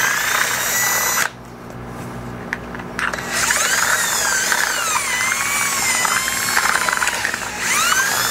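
Cordless drill running in bursts as its bit reams out a hole in a clear plastic globe. The motor whine rises and falls in pitch with the trigger and the load. It stops about a second in, starts again about three seconds in, and gives a last rising burst near the end.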